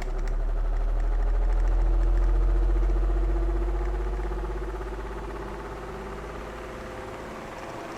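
Electric fan running with a deep rumble and a steady motor tone. It is loudest over the first few seconds, then eases down to a steady, quieter level.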